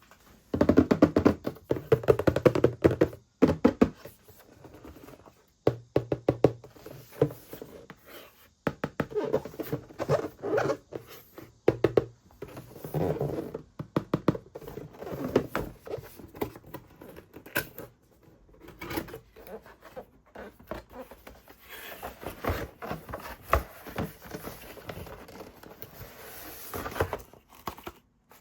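Handling noise: irregular clicks, knocks and scratches of hands working a small plastic object, in bursts with short pauses.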